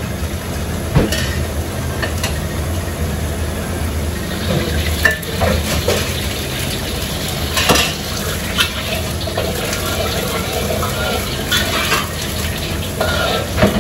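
Blended chili spice paste sizzling as it is sautéed in a wok, stirred with a spatula that scrapes and knocks against the pan now and then. A steady low rumble runs underneath.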